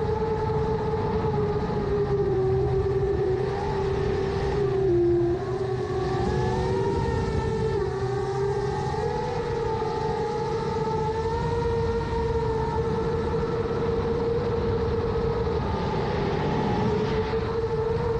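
7-inch FPV quadcopter's 2806 brushless motors and propellers whining steadily in flight, the pitch wavering slightly with throttle and dipping briefly about five seconds in.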